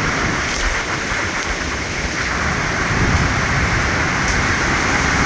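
Heavy rain pouring down in a storm: a steady loud rushing hiss, with a few faint ticks.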